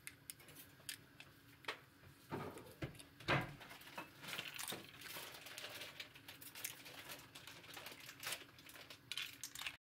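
Cockles being pried open with a metal spoon: repeated clicking, scraping and knocking of spoon and shell against each other, the loudest knock about three seconds in. The sound cuts off abruptly just before the end.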